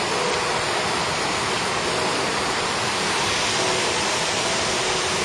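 Steady rushing of water at a river lock, a continuous even roar with no breaks.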